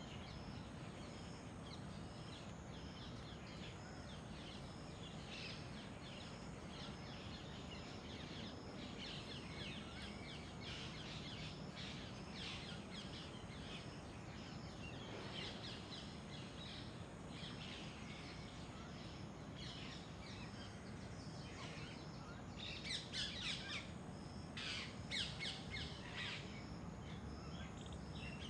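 Wild birds chirping and calling, short high calls repeating throughout, with a louder flurry of calls a few seconds before the end, over a faint steady outdoor hiss.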